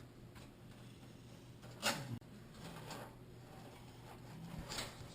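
Faint handling of computer cables being worked through a PC case's cable-routing hole, with one short louder rustle or knock about two seconds in, over a low steady hum.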